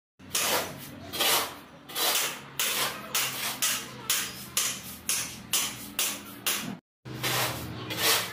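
Hand tool scraping and pushing through a heap of dry M-sand and cement, mixing it by hand. Repeated gritty strokes come about two a second, with a brief break near the end.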